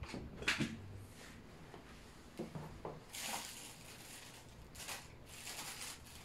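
Cocker spaniel eating meat off a plate, with a string of short wet smacks and clicks of chewing and licking in the first three seconds. These are followed by two longer rustling hisses, about three and five seconds in, as the phone is handled and swung around.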